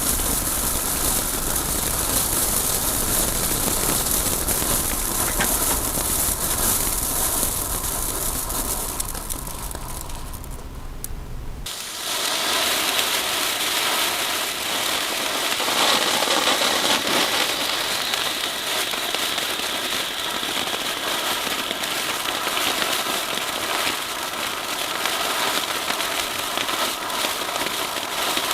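Category 1 fireworks fountains burning with a steady, loud hissing spray. About ten seconds in one fades, and just under twelve seconds in a fresh, brighter hiss takes over.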